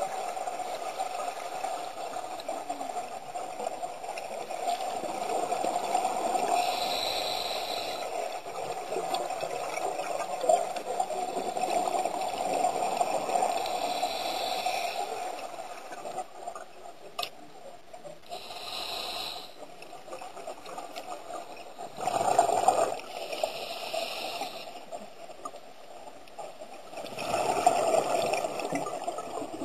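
Underwater gurgling of a scuba diver's exhaled bubbles, in bursts lasting a second or two every few seconds, over a steady watery hiss.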